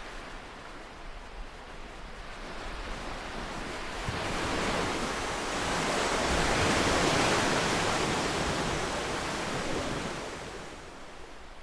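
Ocean waves: one wave builds from about four seconds in, is loudest a little past the middle, and washes away near the end, over a soft steady wash of surf.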